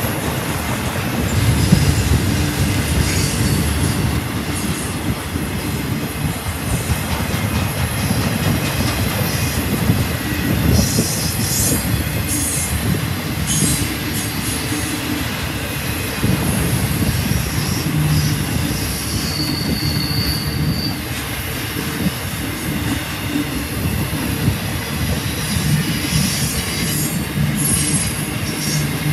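Intermodal freight train's flatcars carrying highway trailers rolling past: a steady low rumble of wheels on rail, with high wheel squeals now and then, including one steady squeal lasting about a second and a half around twenty seconds in.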